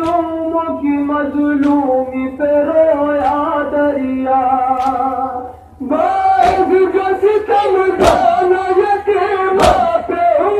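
Male voices chanting an Urdu noha (Shia lament) over a microphone in long held phrases, breaking off briefly about halfway and coming back louder. A sharp beat lands about every second and a half, the rhythm of matam chest-beating.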